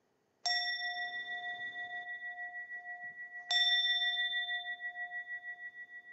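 A bowl bell struck twice, about three seconds apart, each strike leaving a long ring that pulses and slowly fades; the second strike is louder. It is rung as the participants bow at the close of a Zen service.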